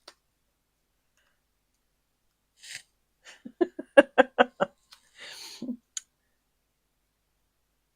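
A quick run of about eight sharp taps or clicks in under two seconds, with brief rustles just before and after, from handling and pressing down card-making pieces on a craft desk.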